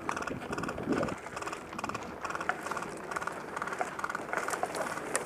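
Footsteps crunching over snow and dry grass at a quick pace, about three steps a second, with occasional sharper clicks.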